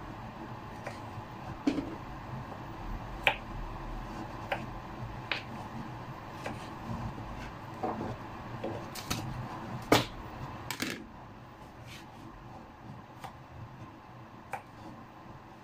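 Kitchen clatter: scattered light clicks and clinks of utensils and dishes over a steady background hiss, with a sharper knock about ten seconds in.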